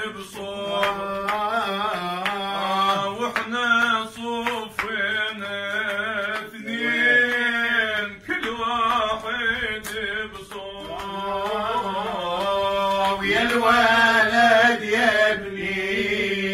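A male solo voice singing an Iraqi maqam in maqam Saba: a long, wavering, melismatic vocal line with no clear words. It runs over a steady low drone note.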